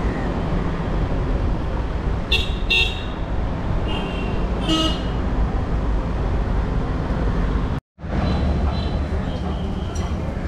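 Street traffic with vehicle horns: several short toots about two to five seconds in over a steady traffic rumble, with a brief dropout about eight seconds in.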